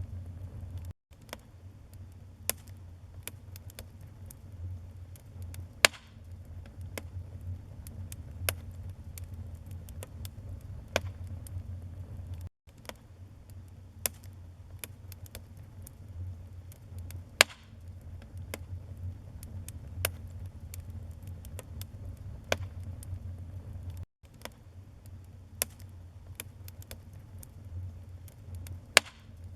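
Wood fire burning in a fireplace: irregular sharp crackles and pops over a low steady rumble, with a few louder pops. The sound cuts out for an instant three times, evenly spaced.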